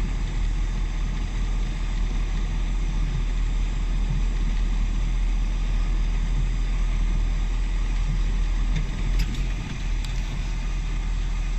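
Car engine idling steadily, a continuous low hum.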